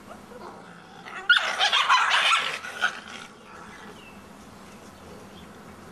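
Wolf pups fighting over a deer head, with a loud burst of growling and snarling about a second in that lasts about two seconds.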